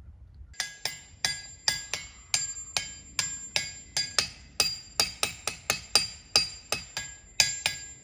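A small hammer striking a ringing rock, a diabase boulder, again and again, about two to three blows a second, starting about half a second in. Each blow gives the same few clear, high ringing notes, which hang on between strikes.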